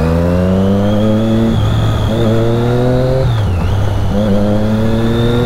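Triumph Daytona 675R's 675 cc inline-three engine, breathing through an aftermarket Scorpion exhaust, under acceleration while riding: loud, with the engine note rising in pitch in three pulls, broken by short dips about a second and a half and three and a half seconds in.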